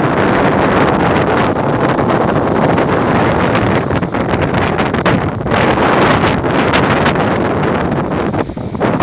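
Ocean wind buffeting the microphone, a loud continuous rush that eases briefly near the end.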